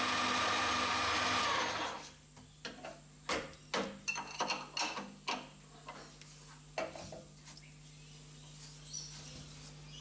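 Metal lathe running with a steady whine while a small steel part in its collet chuck is dressed with an abrasive pad; the machine stops about two seconds in. A string of sharp metallic clicks and knocks follows as the collet nut is worked and the part is taken out, leaving only a faint low hum.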